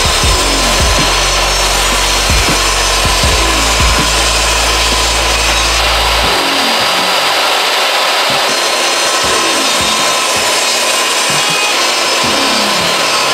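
DeWalt jobsite table saw running under load, its blade ripping lengthwise through an old 2x6 fence board in a resaw pass taking about half an inch at a time. The sound is steady, and its low hum drops away abruptly about six seconds in.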